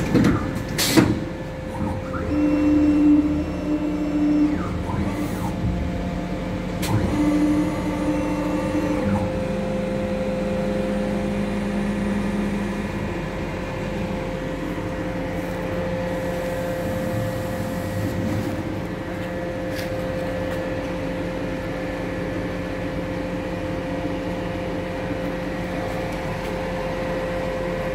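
Robland CNC drilling machine running with a steady motor hum. In the first ten seconds a few short whines, each about two seconds long, and a couple of sharp clicks come through.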